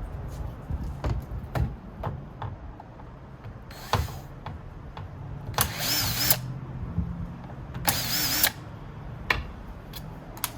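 Small electric screwdriver whirring in two short bursts, backing out screws, among light clicks and knocks of tools on metal and plastic parts.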